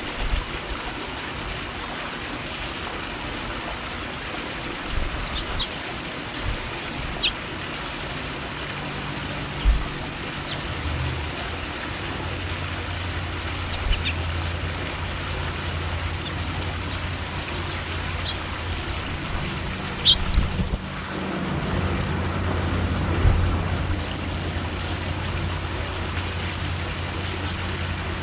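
A few short, high chirps from small birds scattered over a steady background hiss. A low hum comes in about a third of the way through and runs on underneath.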